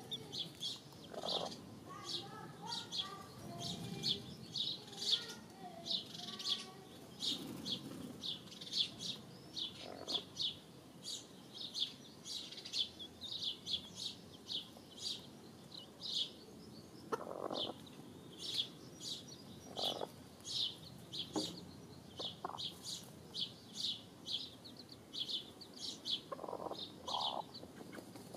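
Hens and chicks dust-bathing: a steady run of short, high chirps, two or three a second, with a few low clucks and brief wing flutters in the loose soil.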